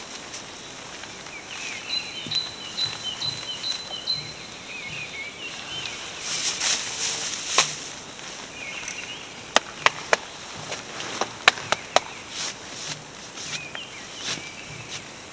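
Camping gear being packed by hand: rustling of fabric and plastic, strongest about six to eight seconds in, and a quick run of sharp clicks and knocks around ten to twelve seconds in. Small birds chirp in the background at intervals.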